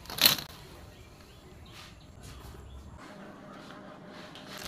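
A brief, loud plastic rustle about a quarter second in as a length of corrugated flexible PVC conduit is picked up and handled, followed by a few faint handling ticks.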